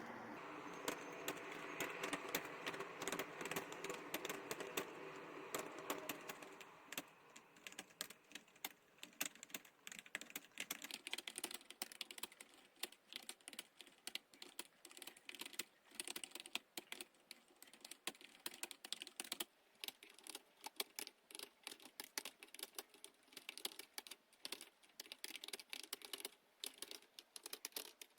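Fast continuous typing on a computer keyboard, a rapid run of key clicks during a typing-speed test. For the first six seconds a steady hum sits under the clicks, then fades out.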